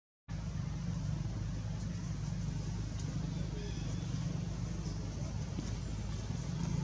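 Steady low engine hum with an even background noise, after a brief dropout at the very start.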